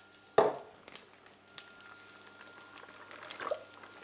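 A sharp knock about half a second in, then a cut-open vacuum bag of venison sauerbraten in sauce being tipped into a stainless saucepan, the sauce pouring and sliding out with soft wet sounds near the end.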